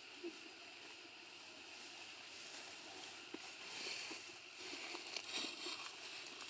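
Faint rustling and crackling with scattered soft clicks, growing busier about halfway through.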